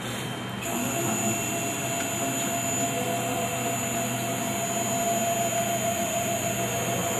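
3636 CNC router jogging its X axis: a steady high whine from the axis drive starts abruptly about half a second in, over a steady low hum.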